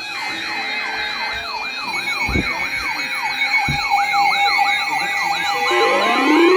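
Electronic siren yelping, its pitch sweeping up and down about twice a second over a steady alarm tone; near the end, slower rising wails start up on top of it.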